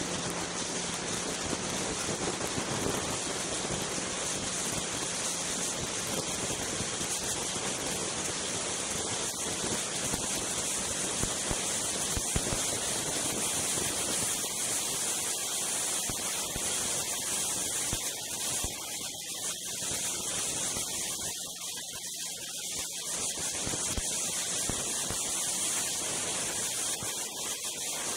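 Steady rushing wind noise on a helmet-mounted camera's microphone while riding a snowmobile at speed, with the machine running underneath. It eases slightly about three quarters of the way through.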